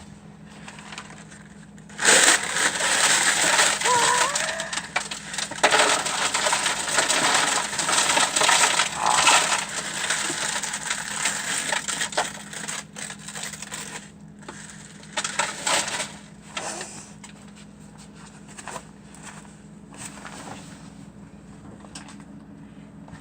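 Loud crackling and crunching of old chips being crushed and emptied into a trash can, starting about two seconds in and lasting some ten seconds. Scattered knocks and rattles follow, over a steady low hum.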